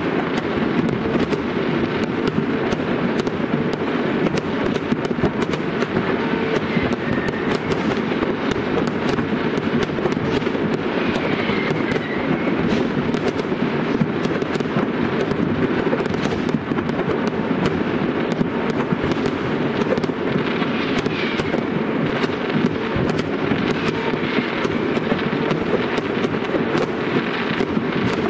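Fireworks going off without a break: a dense run of sharp crackles and bangs, many a second, over a steady rushing hiss.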